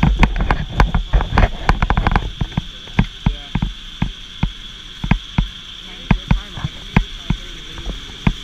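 A string of sharp clicks and knocks, packed close together for the first two seconds and then coming every half second or so, over a steady high hum.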